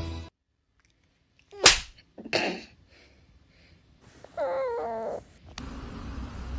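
A sharp, loud noisy burst, a weaker one about half a second later, then a wavering call about a second long, typical of a cat's meow. Steady room noise comes in near the end.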